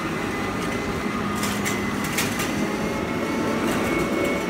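Steady mechanical hum and rumble of machinery, with a faint high steady tone and a few light clicks about one and a half to two seconds in.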